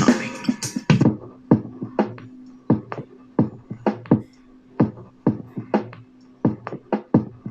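Electronic music played through a small JBL Go portable Bluetooth speaker: a sparse drum beat of sharp hits about twice a second over a held low note.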